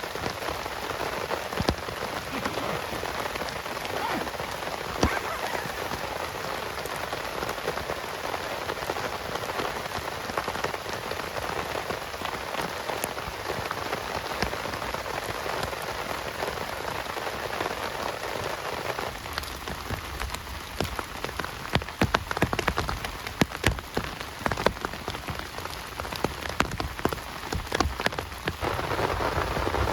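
Heavy rain falling steadily, with many separate drops striking close by. From about two-thirds of the way through, sharper, louder drop hits stand out more.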